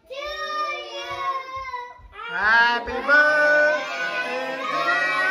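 Children's voices singing in long, held notes, briefly dropping out just before two seconds in, then several voices singing together.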